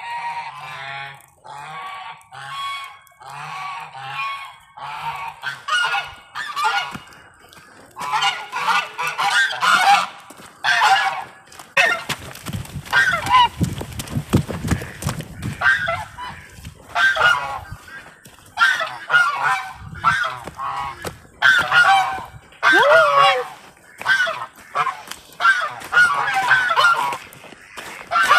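A flock of domestic geese honking over and over, the calls growing denser and louder about a third of the way in. A few seconds of low rumbling noise run under the honks about halfway through.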